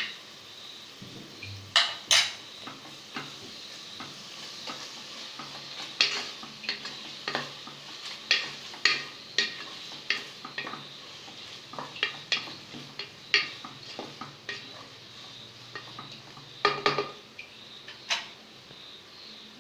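A spoon stirring an onion-tomato masala with freshly added green chilli and garlic paste in an aluminium pressure-cooker pan, knocking and scraping against the pan about once a second over a steady sizzle of frying.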